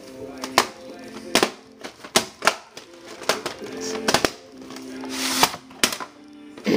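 Plastic VHS tapes and cases clicking and clacking as they are handled, with a sliding rustle about five seconds in. Background music with held low notes runs underneath.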